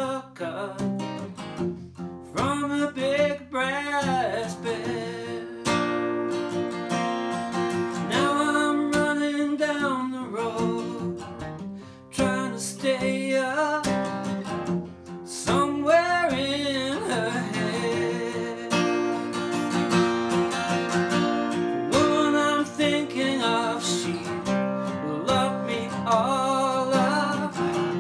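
Steel-string acoustic guitar strummed steadily, with a harmonica in a neck rack playing a melody of bending, wavering notes over it.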